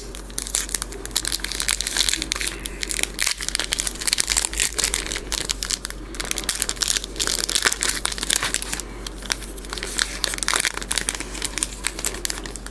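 Foil booster pack wrapper crinkling and crackling in the hands as it is worked open, a rapid, continuous run of small crackles.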